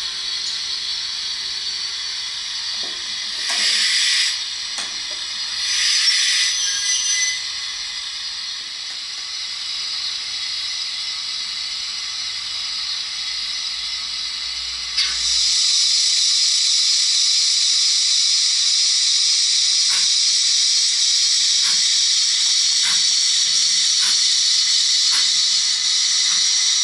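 Simulated steam sounds from the sound decoder of a Hornby OO-gauge GWR 28xx 2-8-0 model locomotive, played through a small speaker in its tender. There are two short bursts of hiss a few seconds in, then about halfway through a steady, louder hiss starts suddenly and keeps going, with a few faint clicks.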